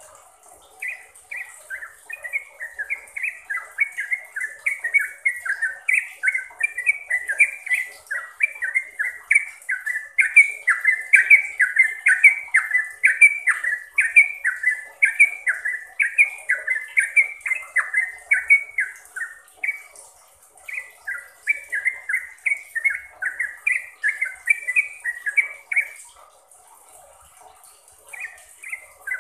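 Yellow-vented bulbul (trucukan) singing a long run of quick, chirpy notes, about three a second. The run breaks off briefly twice in the second half.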